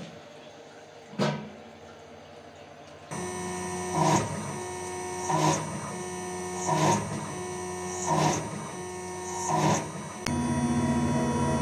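CNC milling machine's end mill cutting metal under flood coolant, the spindle running with a steady tonal hum. After about three seconds it gets louder, and a harsher cutting burst comes about every second and a half, five times, before settling into a steadier, louder hum near the end.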